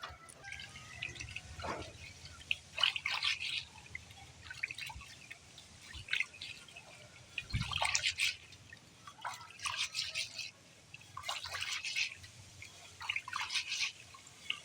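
Water splashing and dripping in short irregular bursts, about one every second or two, as in hands working in a bowl of water.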